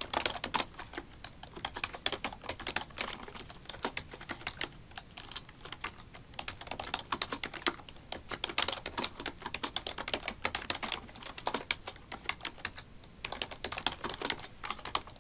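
Typing on a computer keyboard: quick, uneven runs of key clicks with a brief lull near the end.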